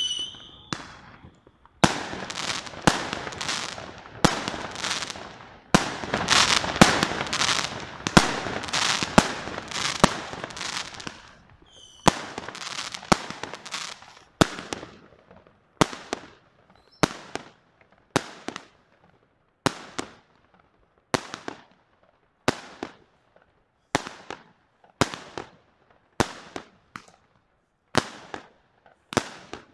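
Aerial fireworks going off: a dense run of overlapping bangs and crackle for the first ten seconds or so, then single sharp bangs at an even pace, a little more than one a second.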